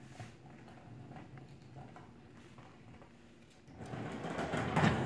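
Skateboard wheels starting to roll across a hardwood floor with a small puppy riding the board, a growing rumble near the end. Before that there is only faint room tone with a few light clicks.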